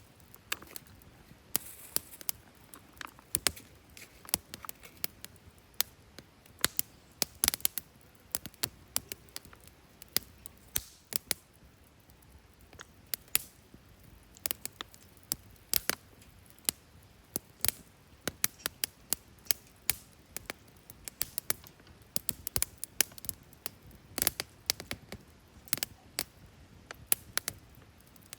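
A steady run of irregular, sharp clicks and snaps, several a second, over a faint background.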